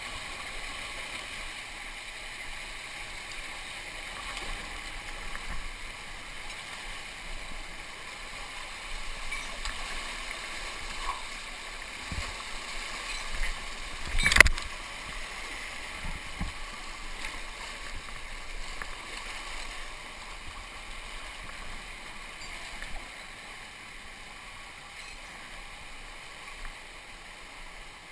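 Canyon stream water rushing and gurgling right at the microphone, with small knocks and splashes. About halfway through there is one loud splash as the camera goes through a foaming whitewater chute.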